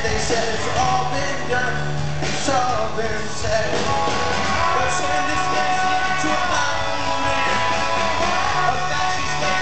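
Live rock band playing loudly, with a singing voice over electric guitars, bass and drums, heavily reverberant and somewhat distorted as picked up by a handheld camera in the crowd.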